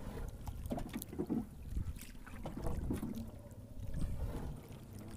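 Wind rumbling on the microphone and water moving around a small outrigger boat, with scattered knocks as a fish-trap line is hauled in over the side.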